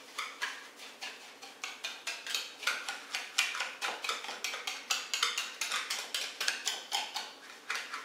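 A utensil stirring buckwheat groats and raw egg in a ceramic bowl, clicking and scraping against the bowl about three to four times a second, the grains rustling as they are coated with the egg.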